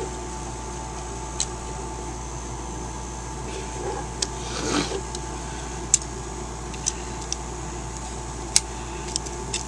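Hard plastic parts of a transforming-robot action figure clicking as they are moved and locked into place: a handful of separate sharp clicks, with a brief rustle of handling about halfway, over a steady background hum.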